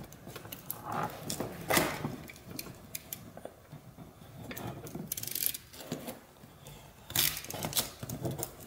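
Scissors snipping and a small piece of repair wrap rustling as it is cut and handled, heard as short scattered bursts of crinkling and clicks, the loudest near two seconds in and again around seven seconds in.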